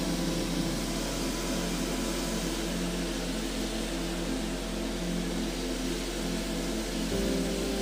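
Steady hum of a parked business jet running on the apron, its tone shifting slightly about seven seconds in.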